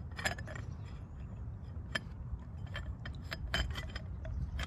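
Scattered light metal clicks and clinks as a clutch-holding tool is worked onto a Yamaha supercharger clutch, metal parts knocking together.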